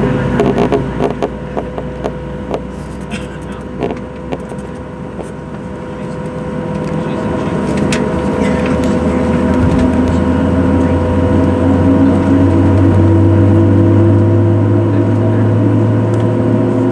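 Inside the cabin of a Boeing 737-700 taxiing: steady hum of its CFM56-7B engines and cabin tones, with a few light rattles in the first few seconds. From about six seconds in the engine drone grows louder and rises slightly in pitch.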